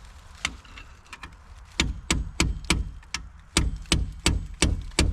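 Repeated hammer blows on a seized Subaru BRAT brake drum to knock it loose: a single strike, then sharp ringing strikes at about three a second, in two runs with a short pause between.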